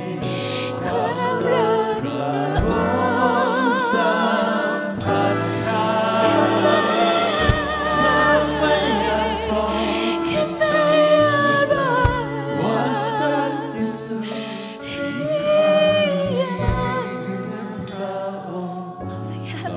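Live church worship band playing a slow Thai-language praise song: voices singing long held notes with vibrato over keyboard and electric guitar.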